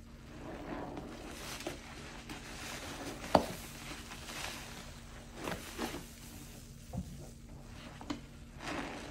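Hands squeezing and rinsing a soapy, grid-scored sponge in a basin of sudsy water: irregular wet squelches and crackling foam, with a sharp wet smack about a third of the way in.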